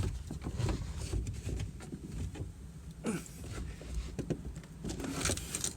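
Rustling, light clicks and knocks of a car's plastic interior trim panel being handled and pried at its clips, with low handling rumble.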